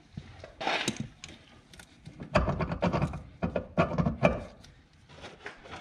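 A brief scrape just before a second in, then a run of irregular clicks and knocks as a gloved hand works the plastic brake fluid reservoir on top of the master cylinder.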